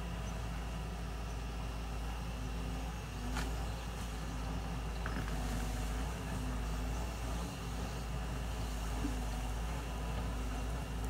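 Crawler excavator's diesel engine running steadily at a distance while it digs, a low, even rumble. A single sharp click about three and a half seconds in.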